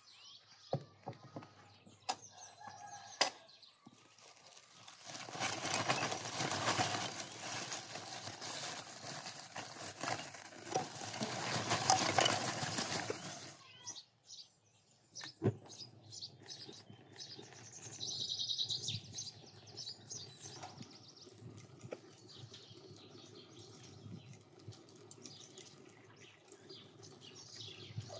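Loud rustling, crackling noise lasting about eight seconds, with birds chirping in the quieter stretch after it and a single sharp click in between.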